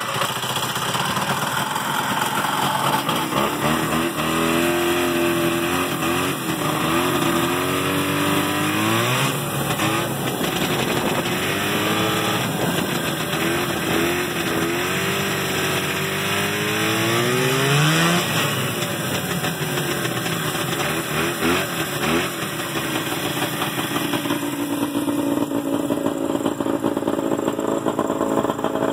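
Ariens Arrow 340 vintage snowmobile's two-stroke engine starting on the key and running as the sled is ridden. Its pitch rises and falls again and again with the throttle through the first half, then it settles to a steadier run near the end.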